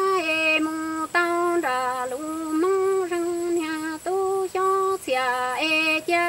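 A woman singing Hmong kwv txhiaj sung poetry, unaccompanied, in long held notes that step up and down, with short breaks between phrases.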